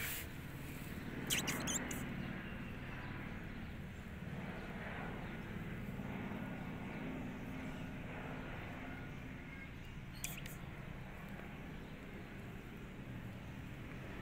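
Steady low outdoor rumble, with a few sharp clicks about a second and a half in and again about ten seconds in.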